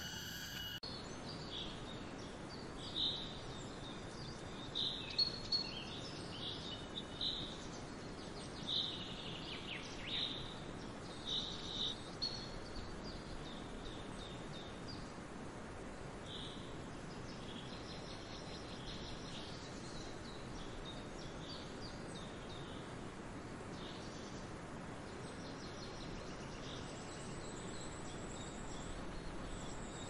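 Outdoor ambience: a steady soft hiss with small birds giving short chirps, most of them in the first half.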